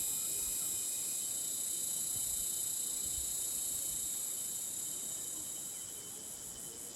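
Insects chirring steadily at several high pitches at once, thinning out over the last couple of seconds and then cutting off abruptly.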